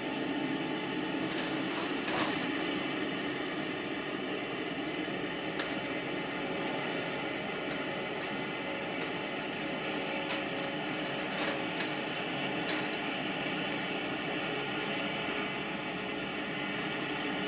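Steady mechanical running noise of a combine harvester working in a wheat field: a continuous even drone with a few faint clicks.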